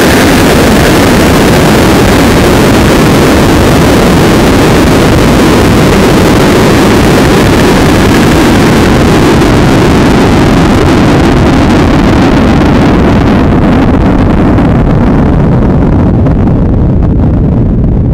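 Loud, steady rush of air over a coasting sounding rocket's onboard camera microphone after engine burnout. The higher hiss fades away over the last several seconds while the low rumble holds.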